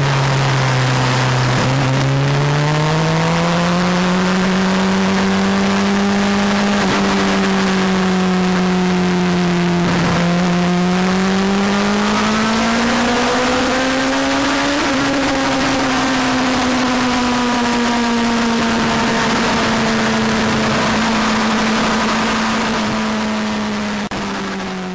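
A 600 cc inline-four sports bike's engine running at road speed, its pitch climbing and easing with the throttle, under heavy wind rush on the microphone. The sound fades out near the end.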